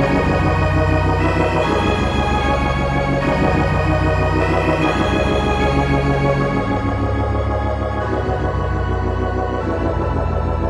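Dungeon synth music: slow, held organ-like synthesizer chords over a deep bass, changing every second or two.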